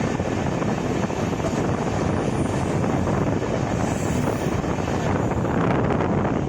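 Steady running noise of an LHB passenger train at speed, heard from inside the coach: a dense, even rumble and rush of wheels on the track.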